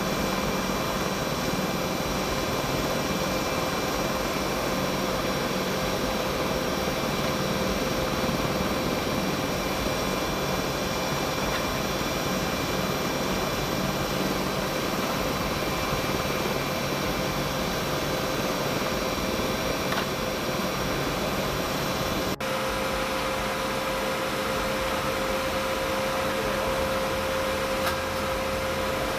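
Steady whir of running machinery with several high whining tones held constant. It cuts off abruptly about 22 seconds in, and a similar steady drone follows with a stronger mid-pitched whine.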